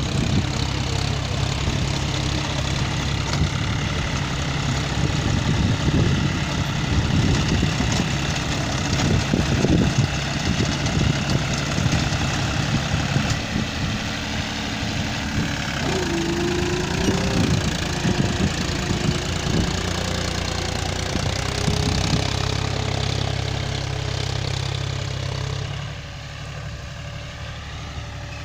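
Tractor engine running under load as it drives a rotavator through soil, with uneven knocking and rattling from the tilling; it drops somewhat quieter near the end.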